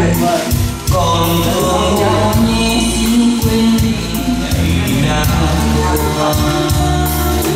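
A song with a singer played loud through a home stereo system's speakers as it is tried out, with heavy bass.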